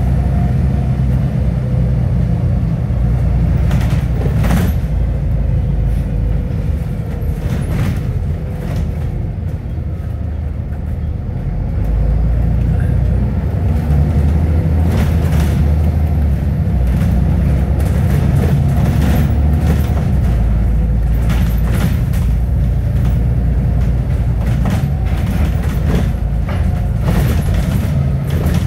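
Double-decker bus in motion, heard from the upper deck: a steady low drone of engine and road noise whose pitch rises and falls as the bus pulls away and slows, with occasional sharp knocks and rattles.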